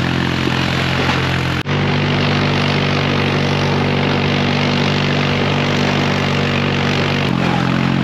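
Engine of the vehicle he is riding in, running steadily at a constant pitch. The sound breaks off abruptly about one and a half seconds in, then carries on, and it shifts slightly near the end.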